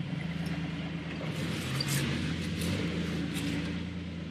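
Off-road vehicle's engine running steadily at low revs, with a few sharp clicks over it.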